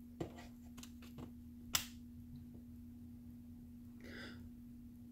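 A few faint clicks, the loudest a little under two seconds in, as the activation buttons on each end of the hourglass prop are pressed, over a faint steady low hum. A brief soft hiss near the end.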